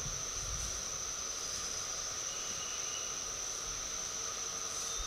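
Steady, high-pitched drone of an insect chorus, one unbroken tone over faint outdoor hiss.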